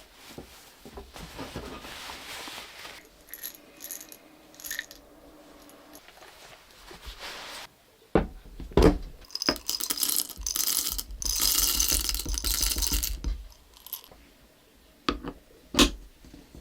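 Small hard objects being handled. There are clicks and a few sharp knocks, then about three seconds of jingling, rattling clatter with a metallic ring, and two more knocks near the end.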